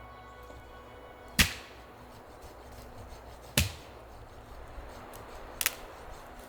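Firewood being chopped: three sharp strikes of a blade on wood, about two seconds apart, the last a quick double hit.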